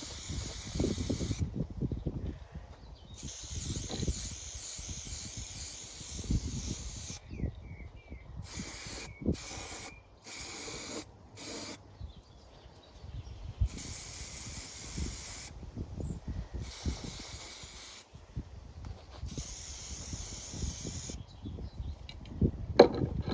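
Aerosol spray can of primer hissing in repeated bursts of one to several seconds with short pauses, as coats of primer are sprayed onto a metal lawn mower deck. A sharp knock near the end.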